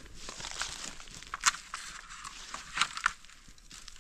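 Dry bamboo leaf litter and twigs crackling and rustling as someone moves through a bamboo clump. There are three sharp snaps: one about a second and a half in, and two close together near three seconds.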